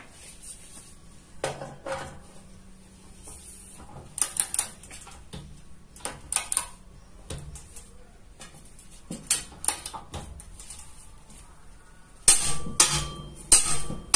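Click-type torque wrench and its socket on a steel nut: irregular metal clicks and clinks as the nut is tightened to 350 N·m, with a louder cluster of clicks near the end.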